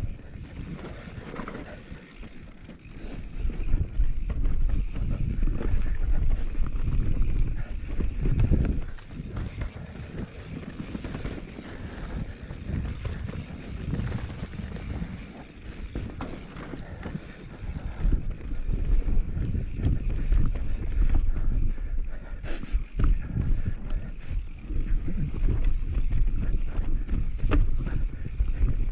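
Wind buffeting the camera microphone over the rumble of knobby tyres on dry dirt singletrack as a Giant Reign full-suspension mountain bike descends, with frequent knocks and rattles from the bike over roots and rocks. It runs quieter in a few stretches and louder in others.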